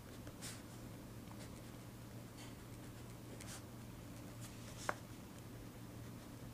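Handwriting on paper: faint, short scratchy strokes about once a second, with one sharp click about five seconds in.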